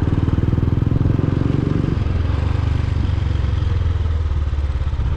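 A vehicle engine running steadily on the move, with a pulsing low note. The note eases and its upper tones drop away about two seconds in.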